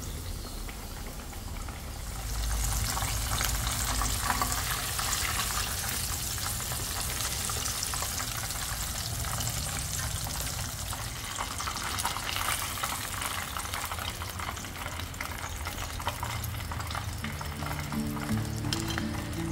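Flour-coated chicken thigh sizzling and crackling as it shallow-fries in hot oil in a non-stick pan. The sizzling grows louder about two seconds in, then stays steady.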